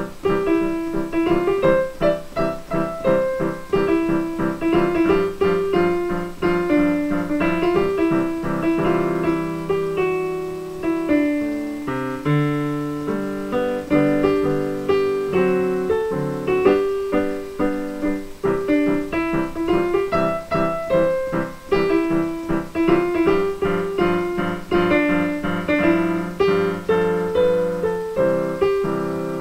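Digital piano played with both hands: a quick, even stream of notes, a melody in the middle register over a moving accompaniment, running without a break.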